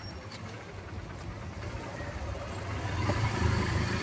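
Motorbike engine running while riding, a steady low hum under road noise, getting louder about three seconds in.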